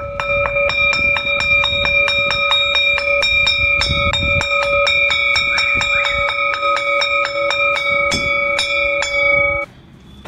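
School bell: a metal bell struck rapidly, about four strokes a second, its ringing tones sustained between strokes, stopping suddenly near the end.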